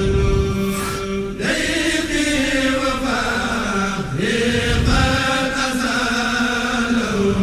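Chanting, with melodic vocal lines that rise and fall over a steady low held note.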